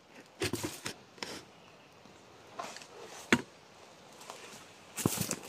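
Dry leaf litter and undergrowth rustling and crackling in short scattered bursts as someone crouches and moves through it, with one sharp click a little over three seconds in.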